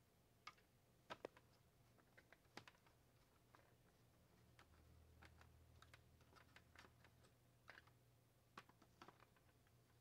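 Faint, irregular small clicks and taps from handling the wires and small plastic parts inside an opened electric space heater during reassembly, over a low steady hum.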